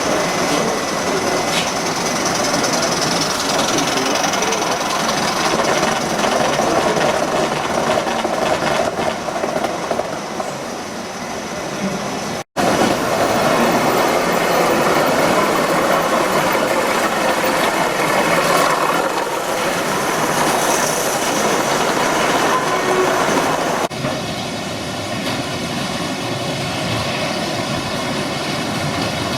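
Gauge 1 model train running on its track, a steady mix of motor and wheel-on-rail noise, broken by a brief dropout about twelve seconds in and a drop in level about twenty-four seconds in.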